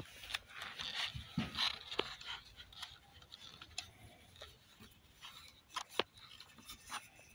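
Handling noise of a knife in a tooled leather sheath: rustling and scraping of leather as the knife is gripped and drawn partway out, with a few short sharp clicks scattered through.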